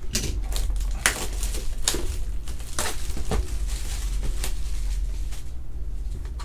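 Sports card hobby box packaging being handled and opened by hand: crinkling and rustling with an irregular string of sharp clicks and crackles, over a steady low hum.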